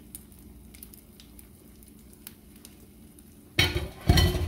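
Beaten egg sizzling faintly in a frying pan as it is poured over spinach, with a few light ticks. Near the end come two loud knocks.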